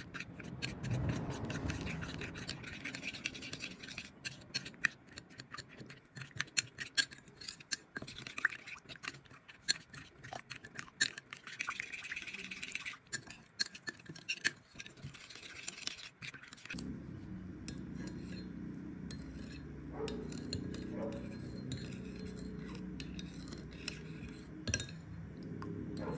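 Small kitchen-utensil handling sounds: many quick light clicks, scrapes and clinks, as of a spoon or utensil against glass and dishware. About 17 seconds in, the sound changes abruptly to a low, steady hum with only scattered clinks.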